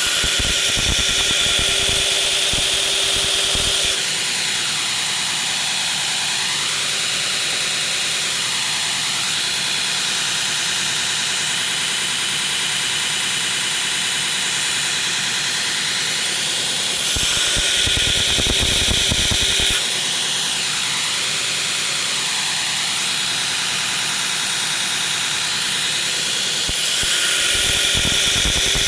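Belt grinder running steadily, with a steel knife blade pressed to the belt three times to grind its bevels: a louder, harsher grinding spell at the start, another around the middle and a third near the end, each lasting about three seconds.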